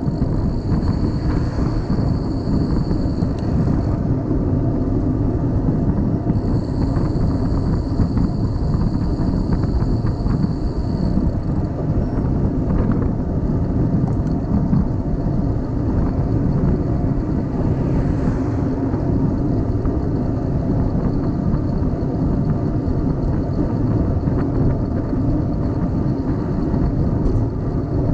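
Steady wind rushing over the camera microphone, with road and tyre noise, from a bicycle riding along. A faint high whine comes in twice in the first dozen seconds.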